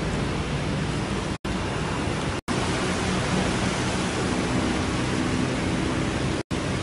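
Steady hiss of outdoor background noise with a faint low hum under it, dropping out for an instant three times.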